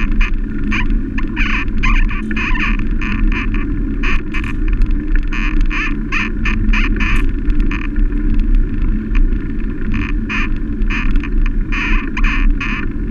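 Wind and road noise on a bicycle-mounted camera while riding on a paved road: a steady low rumble with frequent uneven bursts of higher-pitched noise.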